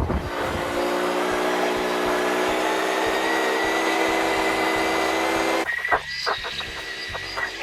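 An engine running at a steady speed. About three-quarters of the way through the steady sound drops away and a few sharp knocks follow.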